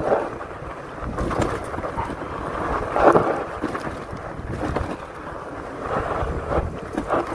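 Wind buffeting the microphone over the rumble of a fat-tire electric bike's tyres rolling downhill on a rough sandy dirt trail, coasting with the motor eased off to save battery. The noise rises in a few louder jolts along the way.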